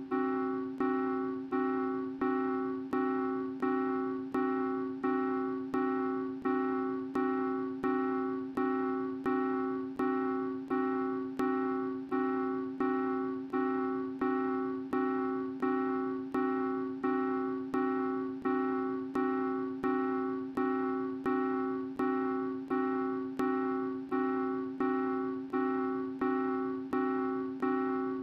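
Looped music: the same piano-like chord struck over and over at an even pace, about three times every two seconds, each strike fading before the next.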